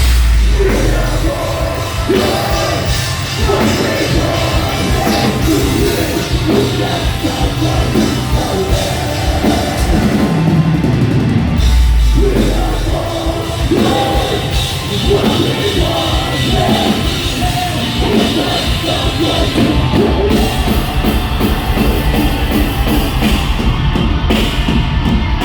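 A metalcore band playing live at full volume: distorted guitars, heavy bass and fast, dense drumming, with yelled and sung vocals.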